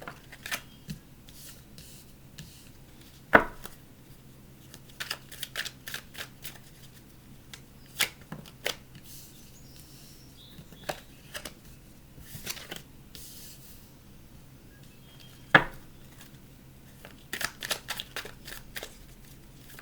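A tarot deck being shuffled by hand: irregular soft card clicks and taps, with two louder knocks about three seconds in and again near fifteen seconds, and a quicker run of card flicks near the end.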